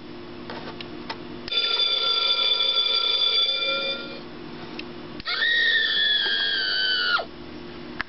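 Monster High Skullette motion-sensor door alarm toy playing electronic sound effects from its small speaker in demo mode: a steady ringing electronic tone of about two and a half seconds, then after a short gap a second electronic tone whose pitch sags slightly, lasting about two seconds. A few faint clicks come before the first tone.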